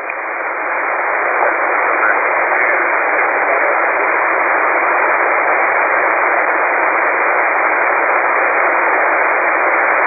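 Shortwave receiver static on the 11282 kHz aeronautical HF channel: a steady, even hiss with no voice and no SELCAL tones, which swells up a little over the first second or so.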